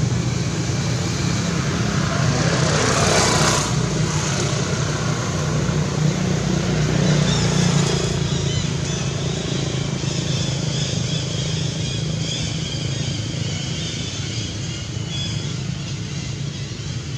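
Motor vehicle engine running steadily, with a louder rush of noise about three seconds in.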